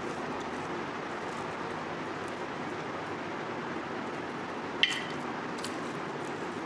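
Steady hiss, with one short metallic clink near the end from the steel plate in which rice is being mixed by hand.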